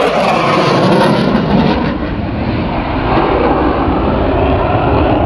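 Loud jet noise from a Saab Gripen fighter's afterburning turbofan engine as it flies past in a display, its pitch falling near the start.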